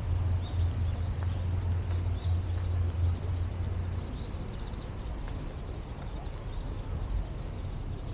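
Footsteps on a dirt-and-gravel path, with small birds chirping now and then. A low rumble underneath drops away about four seconds in.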